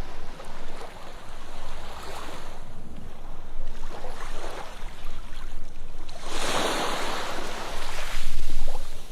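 Sea waves washing onto a sandy beach, in a run of surges. The biggest and loudest surge comes about two-thirds of the way through.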